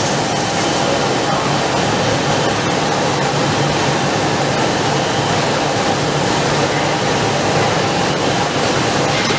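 Steady machinery noise from a running three-layer blown film extrusion line, an even hiss with a faint low hum underneath and no distinct knocks or changes.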